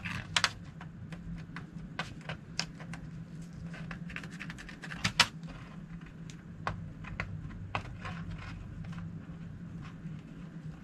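Fingernails picking and scratching at the edge of a strip of double-sided tape to lift its backing liner: scattered small clicks and scrapes, with one sharper click about five seconds in, over a low steady hum.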